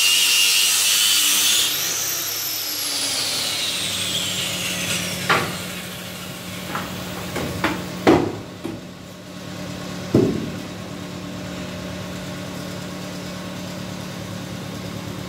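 Electric hand planer shaving a wooden window frame, then switched off about two seconds in, its motor winding down with a long falling whine. Several wooden knocks follow as the frame is lifted and handled, the loudest about eight seconds in.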